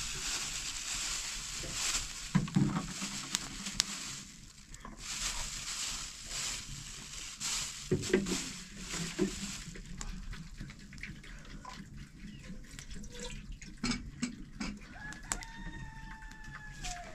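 A rooster crows once near the end. Before that comes a rustling hiss with a few soft knocks as tomatoes are taken from a plastic bag and put into a plastic bowl.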